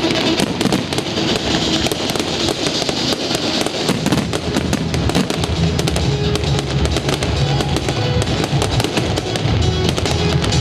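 Fireworks bursting and crackling in quick, dense succession over loud music, with the music's bass growing stronger about halfway through.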